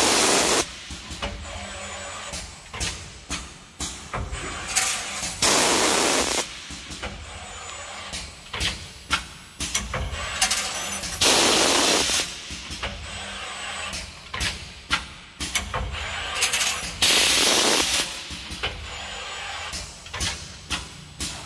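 Pneumatic wire-bending machine cycling. Air cylinders clack and click as the bending head moves, and a loud burst of compressed-air exhaust hiss comes about every five to six seconds, four times.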